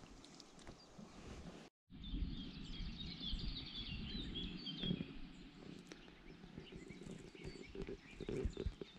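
Faint outdoor ambience: small birds chirping over a low, uneven background noise. The sound cuts out for a moment about two seconds in.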